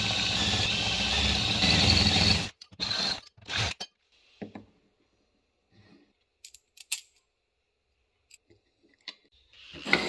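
Power drill running as its bit cuts through a thin aluminium strip, stopping suddenly about two and a half seconds in. A few short knocks and scattered faint clicks follow as the drilled metal strip is handled and set against the plastic block.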